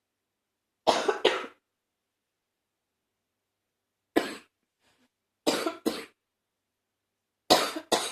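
A person's mildly congested cough: four bouts a few seconds apart, most of them a quick double cough, one a single cough.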